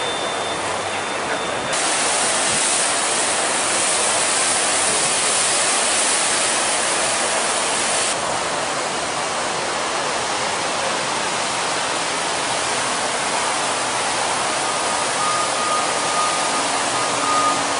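Steady rushing of falling water, with a hissier, brighter stretch from about two to eight seconds in.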